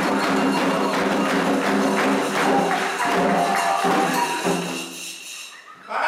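Candomblé toque for Ogum: ritual hand drums and percussion beating a fast, even rhythm under group chanting. The music dies away about five seconds in, and a singing voice starts up again right at the end.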